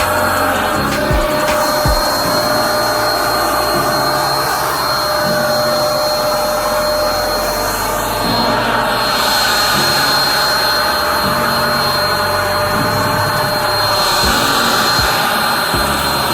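Electric paint spray gun running steadily while it sprays clear coat, a continuous blowing hiss with a steady high whine from its motor.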